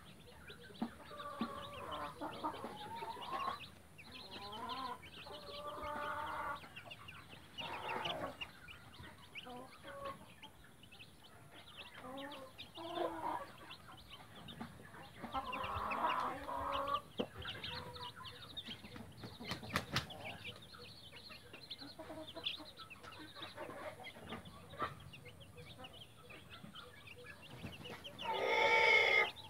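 Mother hen clucking to her chicks in short, repeated calls, with the chicks cheeping around her; one louder, longer call comes near the end.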